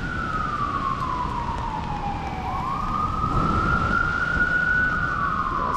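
Emergency vehicle siren in a slow wail: the tone falls, climbs back up about two and a half seconds in, and starts to fall again near the end, over a steady low noise.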